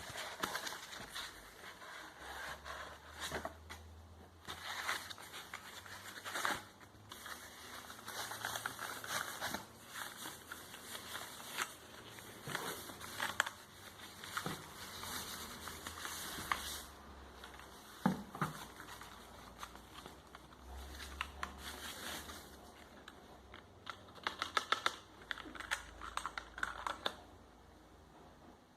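Packaging being handled while a mechanical keyboard is unboxed: plastic and cardboard rustling and crinkling, with scattered clicks and knocks and a flurry of quick clicks near the end.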